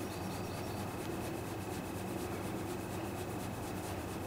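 A hand scratching and rubbing a dog's thick fur: a soft, steady rustle, over a faint steady high whine.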